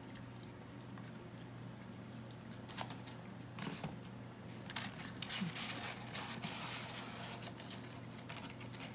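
Small dogs sniffing and eating food off a tile floor: soft scattered clicks, licking and chewing noises, busiest in the middle, over a steady low hum.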